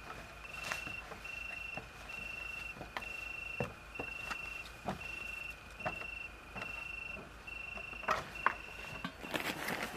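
An insect chirping: a high trill repeated in about ten short pulses, roughly one every 0.8 seconds, that stops a second before the end, with scattered light clicks and knocks throughout and a rustling noise rising near the end.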